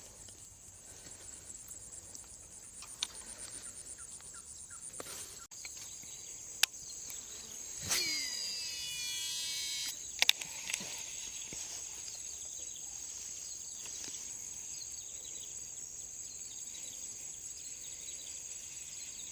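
Steady high-pitched insect chorus of crickets or cicadas. About eight seconds in there is a rising whoosh and two seconds of whirring, with a few sharp clicks around it.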